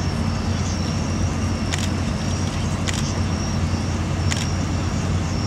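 Steady low hum of city background noise, with a faint high whine and three sharp clicks about a second apart.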